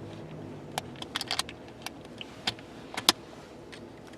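Small metal tools and parts being handled in a tin EDC kit: a scattering of light, irregular clicks and taps.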